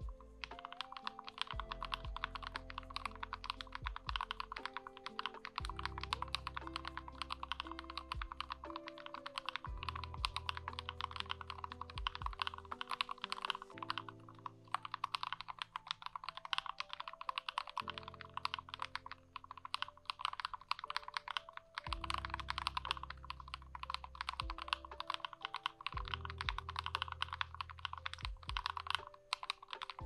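Fast, continuous typing on a GMMK 'White Ice' mechanical keyboard fitted with Akko CS Matcha Green linear switches lubed with Krytox 205G0, the board taped and dampened with Noico sound deadener: a dense, unbroken run of keystrokes. Soft background music with low held notes plays underneath.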